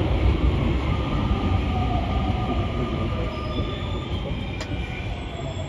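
Rubber-tyred MP14 metro train running, heard from the front of the train: a steady low rumble with faint whines that shift in pitch, and a brief click about four and a half seconds in.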